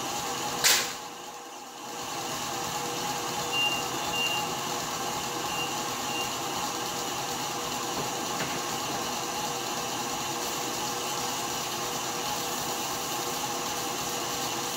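Tilt-head stand mixer running steadily, beating mashed potatoes. A sharp clatter comes just under a second in, the drone dips for about a second, then runs steady again. A few short high beeps sound a few seconds in.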